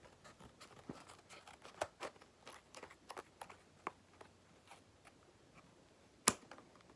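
Scissors cutting into hard plastic packaging: a run of small irregular clicks and snips, then one loud sharp snap near the end.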